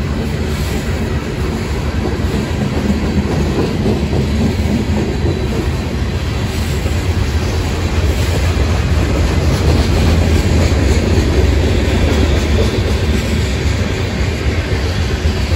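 Heavy mixed freight train's boxcars and tank cars rolling past: a steady low rumble of steel wheels on rail with a clickety-clack over the joints.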